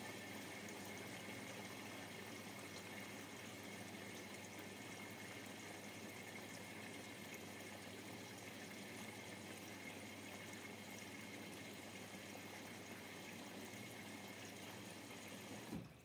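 Bosch washing machine filling: water rushes in through the inlet valve as a steady hiss with a faint high whistle, and it cuts off suddenly near the end as the valve closes.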